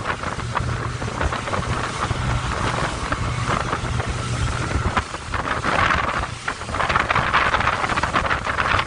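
Wind buffeting the microphone and rushing water over the steady drone of twin Evinrude outboard motors, the boat running at speed. The wind hiss swells in gusts in the second half.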